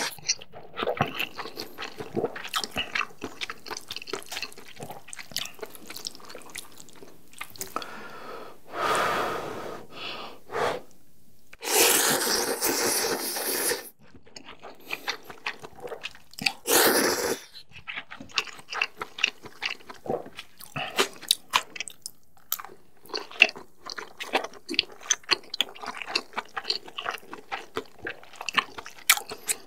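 A person eating instant noodles close to the microphone: three loud slurps, the longest about twelve seconds in and lasting a couple of seconds, with a steady run of wet chewing and smacking clicks between them.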